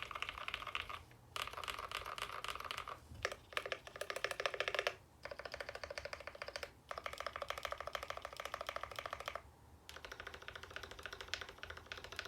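Typing on an Idobao ID87 mechanical keyboard fitted with retooled Cherry MX Black linear switches, lubed with Krytox 205g0 and fitted with switch films. Fast runs of key strokes come in about seven bursts, with short pauses between them.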